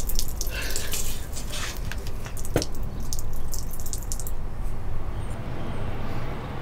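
Water dripping and splashing from a watering can, trailing off after about four seconds, over a steady low rumble. A single sharp click comes about two and a half seconds in.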